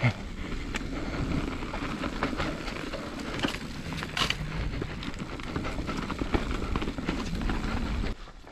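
Transition Patrol full-suspension mountain bike riding fast down a dirt trail: a steady rumble of tyres on the ground, with frequent clicks and knocks of the bike rattling over roots and rocks. The noise drops away suddenly near the end.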